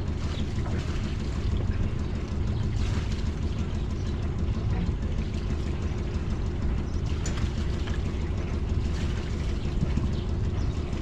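A sailing yacht's inboard diesel engine running steadily, a low even drone.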